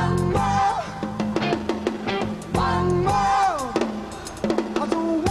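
Live rock band playing: a drum kit drives the groove with bass drum, snare and rimshots under electric bass guitar, and two held melodic phrases each slide down in pitch at the end.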